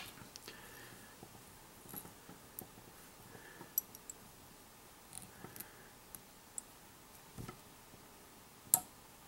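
Light handling noises from fly tying at the vise: soft rustles of fingers on feather and fur and scattered small clicks from tools and thread, with one sharper click near the end.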